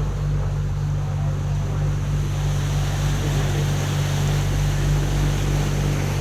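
Canal tour boat's engine running at a steady cruise, a constant low hum, with water and wind noise over it.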